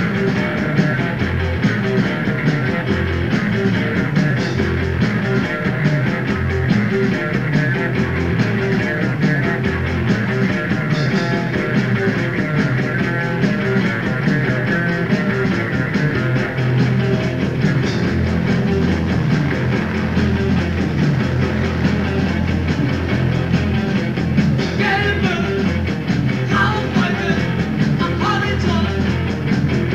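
Live rock band playing a punk-style song, on a lo-fi cassette tape recording with poor sound.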